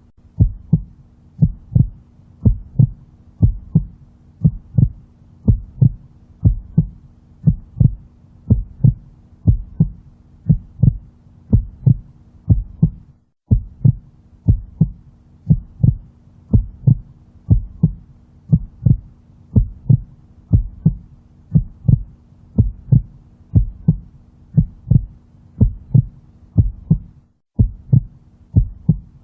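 Heartbeat sound: pairs of low lub-dub thumps repeating about once a second, over a faint steady hum. The sound cuts out for a moment twice, about 13 and 27 seconds in.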